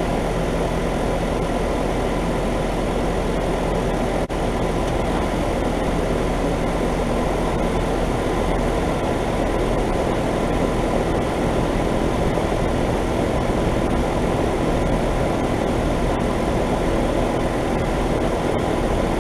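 Trane XB13 heat pump outdoor unit running in heat mode: a steady, loud fan rush over a low compressor hum.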